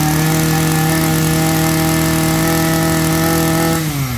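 Maruyama brush cutter's small engine running steadily at high revs, then throttle released near the end, its pitch falling quickly toward idle.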